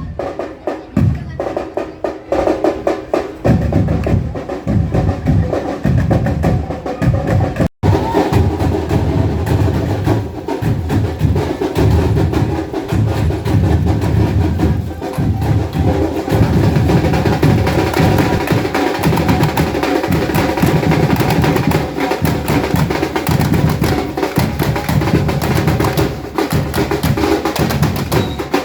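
A batucada drum group playing a loud, dense rhythm on deep bass drums and sharper snare-type drums. The sound cuts out for an instant a little before 8 seconds in, then the drumming carries on.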